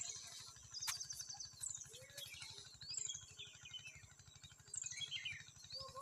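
Birds chirping and singing, with short high chirping phrases repeated every second or so, over a faint low steady hum; a single sharp click about a second in.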